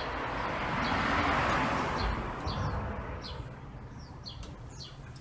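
A passing vehicle's rushing noise swells and fades over about three seconds, followed by several short, high bird chirps.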